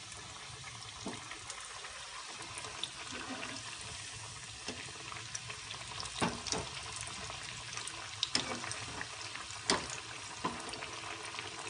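Breaded paneer nuggets deep-frying in hot oil in a kadhai: a steady bubbling sizzle, with a few light clicks of a wire skimmer against the pan.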